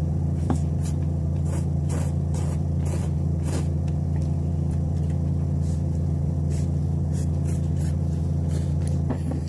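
Instant noodles being slurped and chewed, with short wet mouth clicks in the first few seconds and again later, over a steady low hum.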